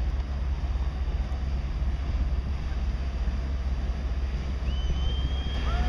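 Steady low rumble of wind buffeting the microphone, mixed with the passing Coast Guard buoy tender Sundew and the lake water. Near the end there is a brief high whistle and then a short pitched call.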